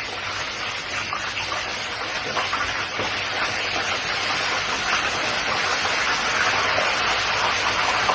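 Fish deep-frying in hot oil: a steady sizzle with small crackles, the fish nearly done.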